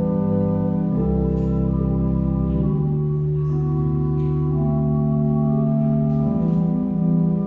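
Organ playing slow, sustained chords, with the held bass note changing every few seconds.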